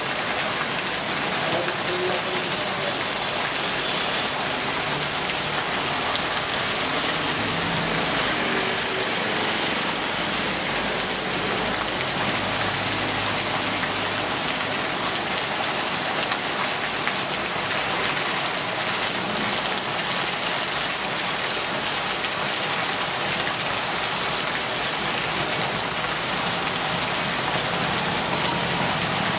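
Heavy rain pouring steadily on the ground and puddles, with runoff streaming off a roof edge and splashing onto wet bricks.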